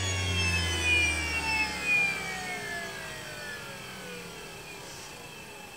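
NutriMill Classic electric grain mill spinning down after being switched off, like a rocket ship powering off: a whine that slides steadily lower in pitch and fades. A low hum under it dies out about two and a half seconds in.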